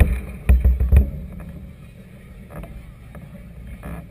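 Wind and choppy water buffeting a camera mounted on a moored vessel: a steady low rumble, with a few heavy low thumps in the first second.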